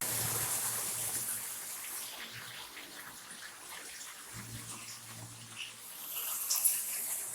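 Water running from a tap, a steady splashing hiss that fades through the middle and grows louder again near the end.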